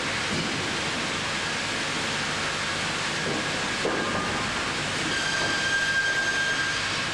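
AKE band saw machinery running with a steady hiss, a thin high whine joining in about five seconds in.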